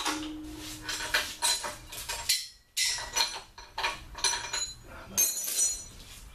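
Steel chain clinking and rattling as it is handled, a run of sharp metallic chinks with a short lull about two and a half seconds in.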